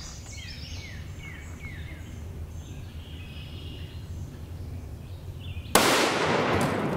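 Birds chirping, then about six seconds in a single rifle shot from a Thompson/Center Compass bolt-action in .308 firing a 152-grain tungsten-core handload, with a long echo trailing after the report.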